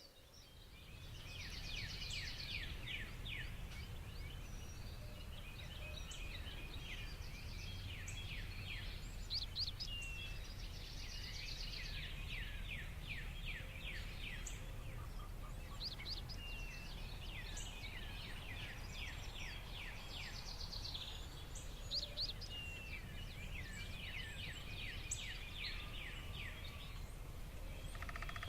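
A chorus of spring songbirds chirping and trilling over a steady low rumble of wind, fading in over the first second or two.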